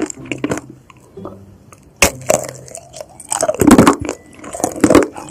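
Bites and chewing of peeled mandarin oranges: several sharp bites, the first about two seconds in, with chewing between them.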